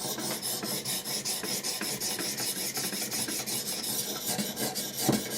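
Diamond stones of a Wicked Edge guided sharpener stroked quickly back and forth along a Benchmade 710's D2 steel blade edge: a steady scraping rasp of several strokes a second, with a light knock near the end. It is a test pass to see where the stones take off the Sharpie marker on the bevel at the set angle.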